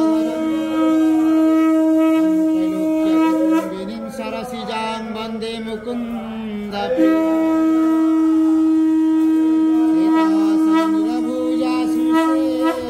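A conch shell (shankha) blown in two long, steady notes of the same pitch, the first ending about three and a half seconds in and the second starting about seven seconds in and held until near the end. Chanting voices can be heard in the gap between the notes.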